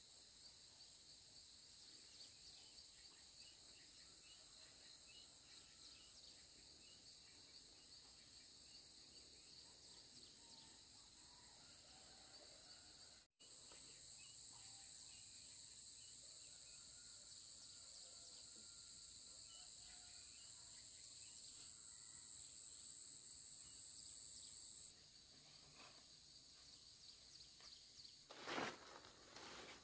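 Faint, steady chorus of calling insects in two high-pitched bands, with a few faint bird calls. It breaks off for an instant about thirteen seconds in, then the higher band comes back louder and stops about twenty-five seconds in. A couple of brief rustling noises near the end.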